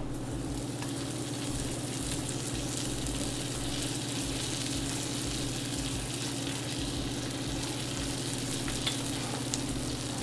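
Buttered donut halves sizzling and frying on a hot stovetop grill pan, a steady hiss over a low hum, with a couple of faint clicks near the end.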